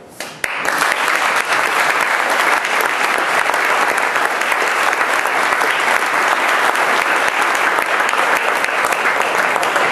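Audience applauding, breaking out about half a second in and holding steady.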